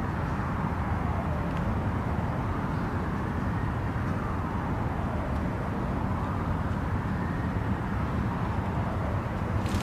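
Steady outdoor background rumble, with a faint tone slowly rising and falling through it every few seconds.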